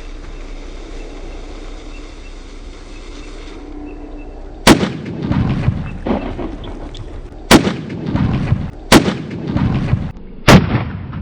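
Four loud explosive bangs from homemade bombs, spaced one to three seconds apart, each followed by a rumbling echo. Before them there are a few seconds of steady outdoor noise.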